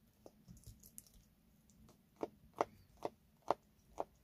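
Eurasian eagle-owl feeding on raw meat, its beak crunching and snapping: a run of sharp clicks, five loud ones about two a second in the second half, after fainter ticks and rustling.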